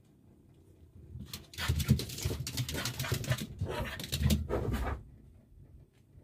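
Small dogs scrabbling close by: a dense run of scratching and rustling that starts about a second in and stops about five seconds in.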